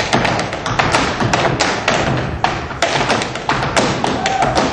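Tap shoes striking the floor in a fast, dense run of taps: a tap dancer improvising in a cutting contest.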